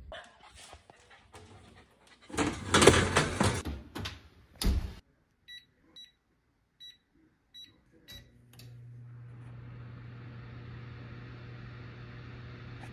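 A loud clatter and a sharp knock, then several short beeps from the electric oven's touch control panel as it is set to bake, followed about eight seconds in by a steady hum as the oven starts preheating.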